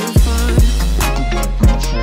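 Background music with a beat: deep kick-drum hits that drop in pitch land twice, under a layer of sustained notes.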